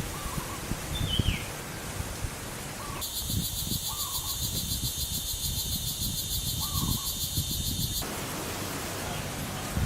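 Outdoor nature ambience: a high, fast-pulsing insect chorus starts suddenly about three seconds in and cuts off about five seconds later. Short bird chirps repeat throughout.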